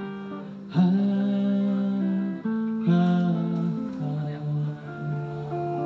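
Electric guitar playing a slow run of chords, each one struck and left to ring before the next, with the loudest strikes about a second in and again about three seconds in.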